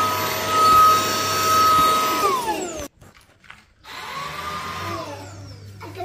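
Cordless stick vacuum cleaner running with a steady high motor whine, then switched off about two and a half seconds in, the whine falling in pitch as the motor spins down.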